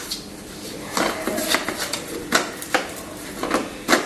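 Sharp plastic clicks and knocks, about six of them, from handling a cordless handheld vacuum's dust bin and filter: the parts are being pressed and worked to release the collected dust.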